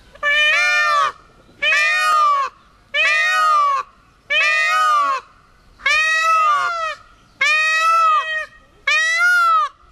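Male Indian peafowl (blue peacock) giving its very loud screaming call seven times in a row, about one every second and a half. Each call rises and then falls in pitch.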